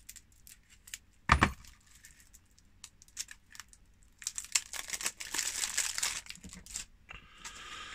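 Clear plastic shrink-wrap on a deck of cards being slit with a craft knife and peeled off, with light scratching clicks, one sharp knock about a second in, and a stretch of dense crinkling in the second half.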